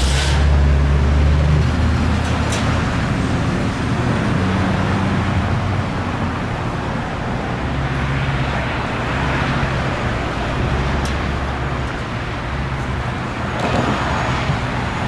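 Street traffic: vehicle engines running with road noise, a low engine hum strongest in the first couple of seconds.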